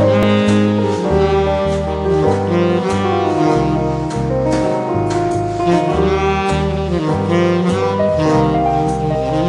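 Instrumental background music in a jazz style: a lead horn over a bass line with a steady beat.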